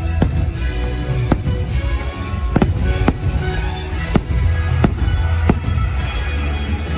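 Fireworks bursting in a string of about seven sharp bangs over the show's loud music soundtrack.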